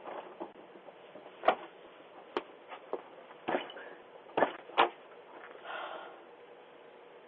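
About six sharp, irregular knocks or bangs on a door over some four seconds, heard through a doorbell camera's narrow-band microphone.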